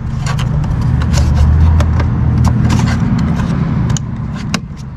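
Low motor-vehicle engine rumble that swells over the first couple of seconds and fades about four seconds in, with scattered light clicks and taps.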